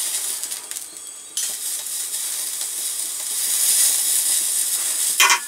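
Beef minute steak sizzling on the hot grate of a small gas grill. The sizzle drops away for a moment as the steak is lifted and turned with a fork, then comes back suddenly and louder once it lands on the grate about a second and a half in.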